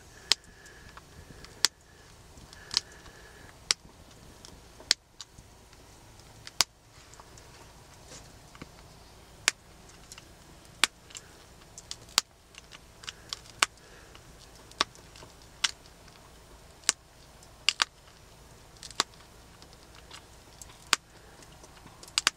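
Stone arrowhead being pressure-flaked with a deer antler tine against a leather pad: sharp little clicks, roughly one a second, as fine flakes snap off the edge to rework the point and its serrations.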